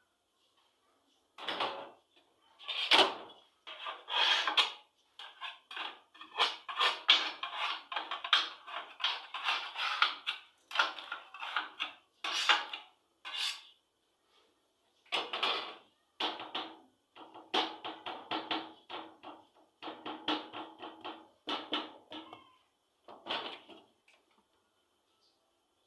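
Irregular knocking and clattering in quick bursts, stopping and starting through the whole stretch, from bakery work on a hard surface.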